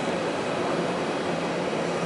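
Steady drone of heavy construction machinery engines running, with a low hum under a broad, even noise.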